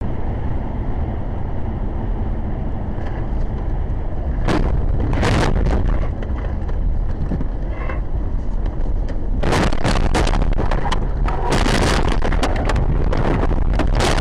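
Car interior heard through a dashcam microphone: a loud steady rumble of tyres and wind on a snowy road, with a couple of jolts about halfway through. From about nine and a half seconds in comes a rapid series of bangs and crunches as the car crashes off the road.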